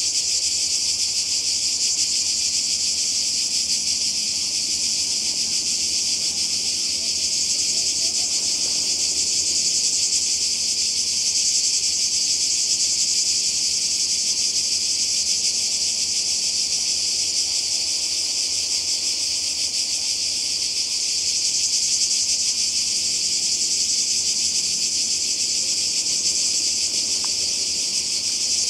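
A chorus of cicadas buzzing, a dense high-pitched drone that holds steady without a break.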